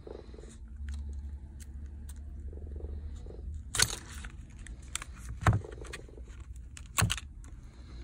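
Thin plastic card and a phone's back cover being worked apart by hand: plastic scraping and crinkling, with three sharp plastic clicks about 4, 5½ and 7 seconds in as the adhesive-held back cover pulls free.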